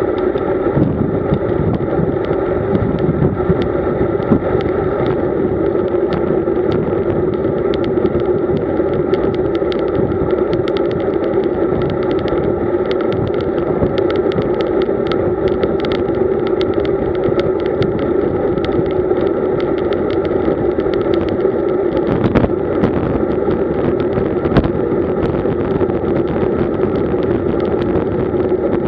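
Road bike riding at speed, heard through a camera fixed to the bike: a steady hum of tyres and wind with many small ticks and rattles from the road surface, and two sharper knocks late on.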